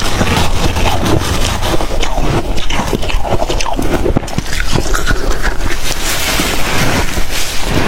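Close-miked biting and chewing of freezer frost: a dense, irregular run of crisp crunches and crackles.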